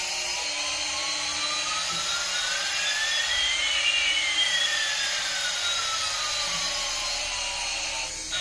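Steady jet-like rushing noise, with two whistling tones gliding across it, one rising and one falling, that cross about halfway through.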